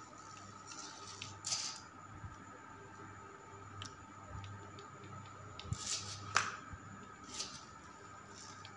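Homemade RC crawler's small electric motor and gears whining faintly and steadily as it crawls slowly over cordless drills. A few short scrapes and clicks come as the tyres and chassis grind against the drills' plastic casings, the sharpest about six seconds in.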